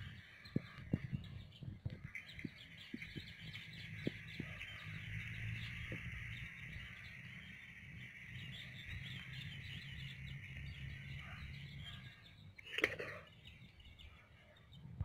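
Many small birds chirping together in a busy, continuous chorus over a low steady hum, with a few clicks in the first seconds. Near the end the chorus and hum drop away and one brief louder burst of sound stands out.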